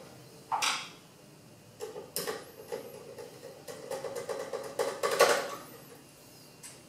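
Screws and a Phillips screwdriver clicking and scraping against the sheet-metal cover of an espresso machine's circuit-board housing as the cover's two screws are put back in. There is a single knock about half a second in, a short cluster around two seconds, then a run of quick ticks and rattles, the loudest near the end.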